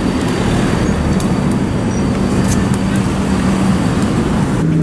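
Steady road traffic passing close by on a bridge deck, with a steady low engine hum running under the noise of the cars.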